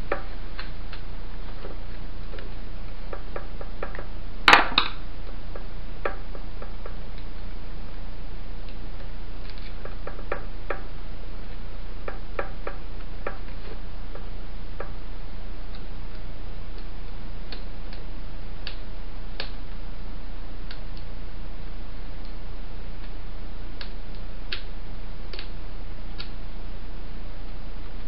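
Scattered light clicks and taps from a small electric fan motor and its metal parts being handled, with one louder clink about four and a half seconds in, over a steady low hum.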